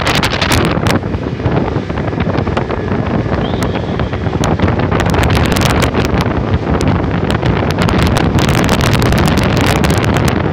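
Wind buffeting and crackling on the microphone over the steady rush of a motorboat running at speed across open water.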